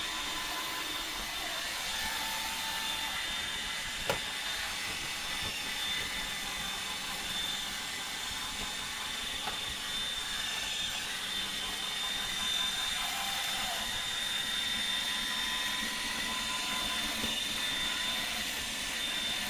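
Roomba 870 robot vacuum running, a steady whir of its motors with a thin high whine. A single sharp click about four seconds in.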